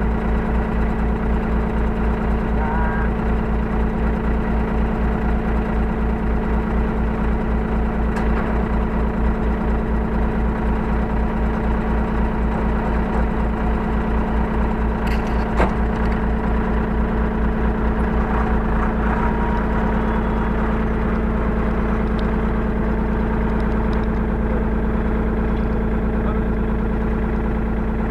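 Hyundai R35Z-9A mini excavator's diesel engine running steadily, heard from inside the cab, its low pulsing evening out about two-thirds of the way through. A few light clicks and one sharper knock come about halfway through.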